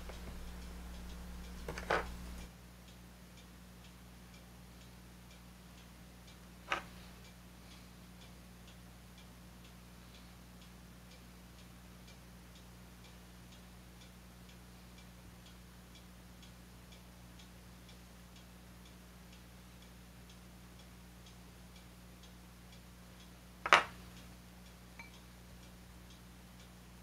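Small metal hobby tools, tweezers, a hobby knife and a steel ruler, clicking sharply against a cutting mat three times, the loudest near the end, over a faint regular ticking and a low hum.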